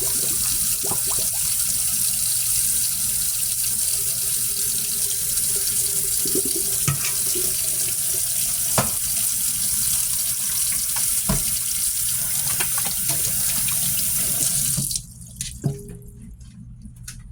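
Kitchen sink tap running steadily as chicken wings are rinsed under it, with a few light knocks of the pieces against the sink. About fifteen seconds in the water is shut off suddenly, leaving a few soft knocks.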